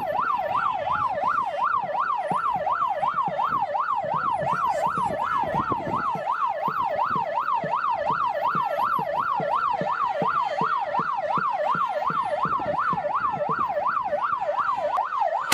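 Vehicle siren in yelp mode: a fast wail sweeping up and down about three times a second, on and on without a break.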